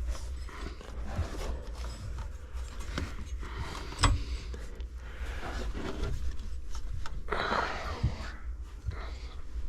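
Hands working a rubber drive belt back over the crankshaft and water pump pulleys of a MerCruiser 3.0 engine: irregular rubbing and scraping, with one sharp click about four seconds in.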